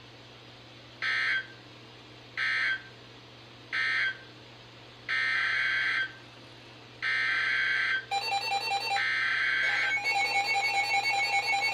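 Emergency Alert System SAME data bursts on a NOAA Weather Radio broadcast. Three short end-of-message bursts come about a second apart, then longer header bursts for the next alert start about five seconds in. From about eight seconds in, a pulsing electronic alarm-like tone plays along with the last burst and carries on.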